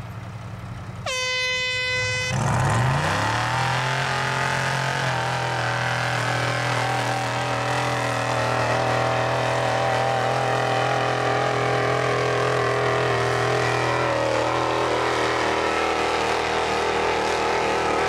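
A steady horn blast about a second in. Then an off-road buggy's engine revs up and holds high revs, running hard under load as it tows a heavy front-end loader on a tow line.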